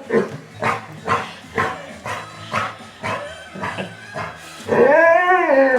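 Black Labrador making a run of short yips and whimpers, about two a second, followed about five seconds in by a long wailing call that rises and then falls in pitch.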